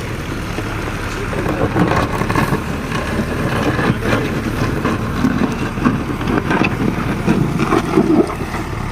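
Diesel engine of a JCB 3DX backhoe loader running steadily, growing louder and uneven from about a second and a half in until near the end.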